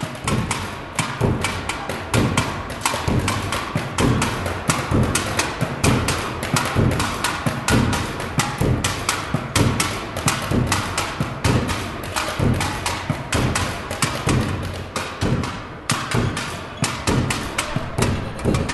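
Drumming on plastic recycling wheelie bins and buckets: a fast, steady beat of deep thuds with sharper hits on top.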